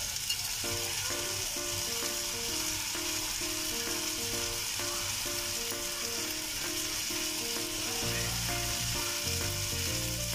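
Raw basmati rice frying in oil and masala in a metal pan as it is turned with a wooden spatula: a steady sizzle. Background music with a short-note melody plays over it, and a bass line comes in near the end.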